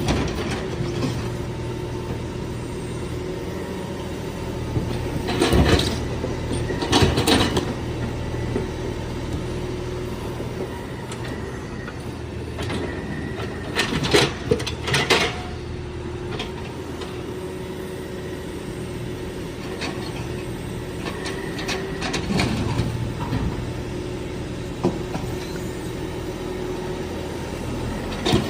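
Wheel excavator's engine running steadily as the machine works its hydraulic grapple, with several short, louder bursts of noise from the working machine, about four times.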